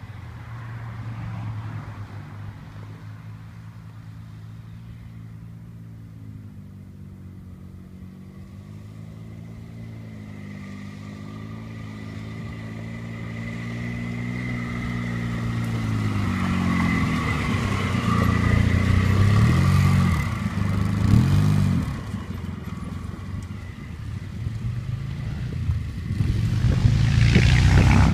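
ATV (quad bike) engine running, its pitch rising and falling with the throttle, growing louder as the quad comes close and is loudest in the second half, with a hard rev near the end.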